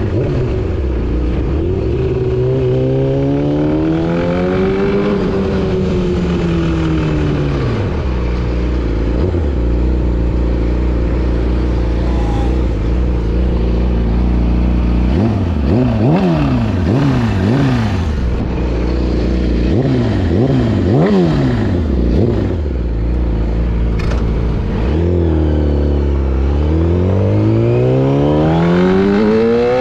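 Yamaha R6 sport bike's inline-four engine revving under hard riding, its pitch climbing and dropping through the gears, with a run of quick rev rises and falls about halfway through and a long climb near the end.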